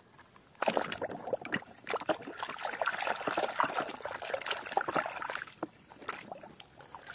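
Water sloshing and splashing in a plastic basin as a hand scrubs a plastic toy vehicle in muddy water. The splashing is irregular and eases off near the end.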